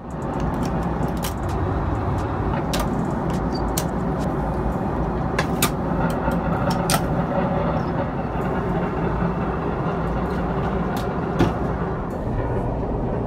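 Steady in-flight roar of a Boeing 777-300ER airliner as heard inside its lavatory, with scattered light clicks and knocks as compartments and a drawer are opened and handled.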